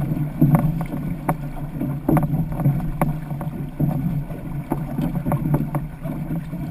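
Outrigger canoe under way with a racing crew paddling hard: a steady rush of water and wind, broken by the sharp splash and knock of paddle strokes about once or twice a second.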